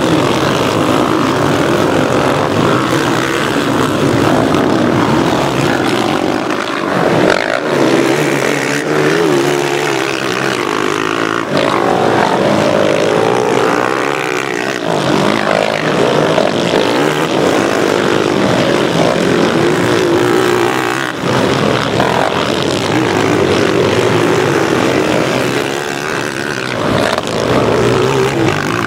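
Engines of several racing quad ATVs revving hard on a dirt track, rising and falling in pitch as the riders accelerate and back off, several machines at once.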